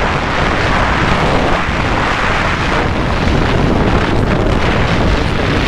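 Loud, steady wind noise blasting over the microphone of a two-wheeler rider at highway speed, a rough crackling rush with road and vehicle noise underneath. The vlogger puts the crackle down to air striking the mic through the open helmet visor at around 80–85 km/h.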